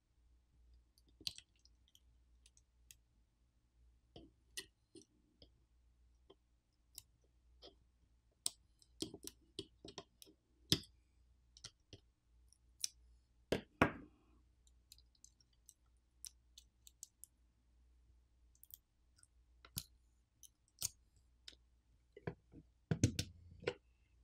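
Small, irregular clicks and taps of a precision screwdriver and a metal pick tool on the plastic inner frame of a smartphone being taken apart, with a few louder knocks around the middle and near the end.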